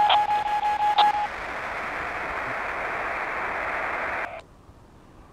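Amateur microwave receiver audio: the other station's beacon as a steady tone over hiss, which stops about a second in, leaving only the receiver's hiss. The hiss cuts off suddenly about four seconds in.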